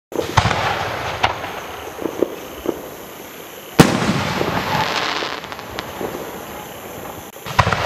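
Six-inch aerial firework shells going off. There is a sharp report at the start and scattered pops, then a very loud bang about four seconds in as a shell bursts, trailing off in a long echoing rumble. Another strong report comes near the end.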